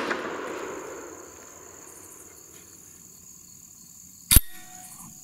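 The report of a Beretta 1301 Tactical 12-gauge shotgun, fired with a 3-inch turkey load, rolls away and fades over about the first second. Insects trill steadily and high throughout. About four seconds in comes one sharp bang.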